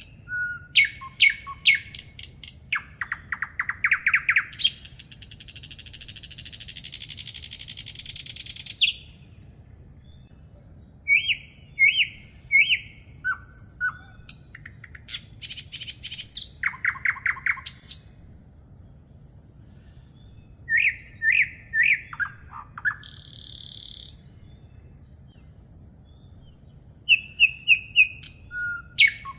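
Songbirds singing: short chirping and whistled phrases repeated over and over, with a long high buzzy trill from about five to nine seconds in and a shorter one near the end. A faint steady low rumble lies underneath.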